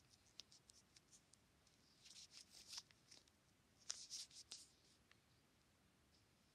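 Faint handling noise: light clicks and rustling, bunched into two short clusters about two seconds in and about four seconds in, against near silence.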